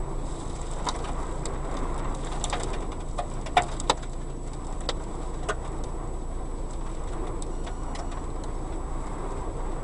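Strong wind blowing with a steady low rush, while something clicks and rattles at irregular intervals, with two louder knocks a few seconds in.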